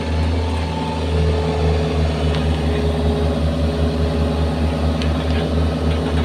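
Excavator's diesel engine running steadily, with a low throb pulsing several times a second and a steady whine above it that comes in about a second in.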